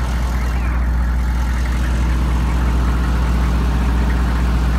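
Soft-serve ice cream truck idling, a steady low engine drone with an even running rhythm.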